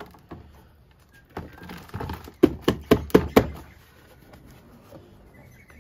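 Square plastic nursery pot being knocked and worked with the hands to free a juniper's root ball, giving a quick run of about six sharp hollow knocks in the middle, with rustling and scraping of the pot around them.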